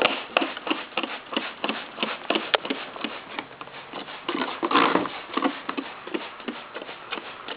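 Server case being cleaned with Windex: a quick run of irregular rubbing, scraping and light knocking as it is wiped down.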